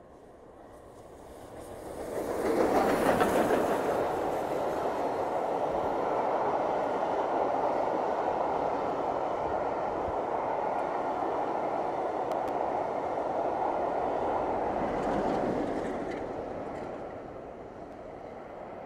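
Steam-hauled passenger train headed by Royal Scot class 4-6-0 46115 Scots Guardsman passing close by: the noise swells about two seconds in and is loudest just after, then the coaches keep up a steady rolling rumble on the rails before it fades away near the end.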